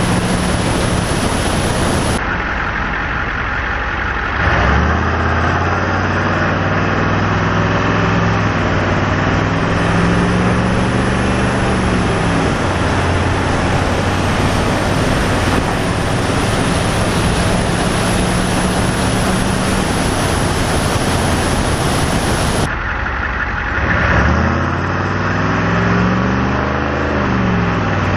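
Ford F-350's 7.3 IDI turbo-diesel V8 running through a straight-piped exhaust while the truck drives; the exhaust note rises and falls with the throttle, dipping briefly a couple of times and climbing then falling again near the end.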